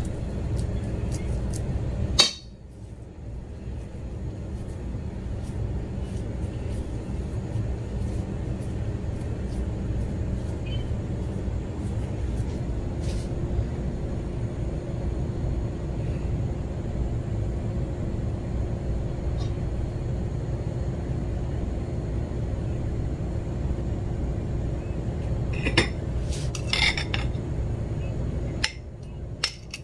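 Steady low background rumble of a home kitchen, with a sharp click about two seconds in. Near the end a metal spoon clinks a few times against a bowl as a croquette is turned in beaten egg.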